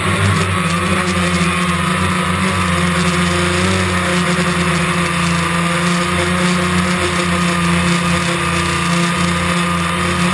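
DJI Phantom quadcopter's motors and propellers droning steadily in flight, a constant buzzing hum with a high whine over it and a steady hiss.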